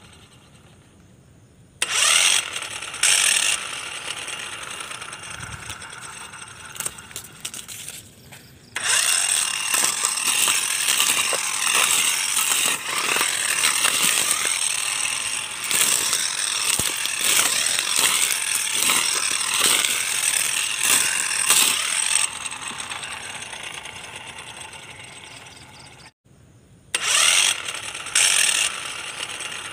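Homemade battery-powered brush cutter, a small electric motor spinning a clear plastic disc blade, switches on with a whine about two seconds in. For about a dozen seconds in the middle it runs through grass, with a rapid crackle of stems striking the blade. It then winds down and switches on again near the end.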